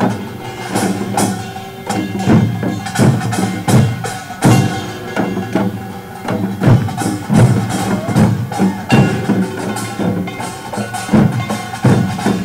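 Korean pungmul percussion band playing: buk barrel drums and janggu hourglass drums beaten in a fast repeating rhythm, with kkwaenggwari and jing gongs ringing over them.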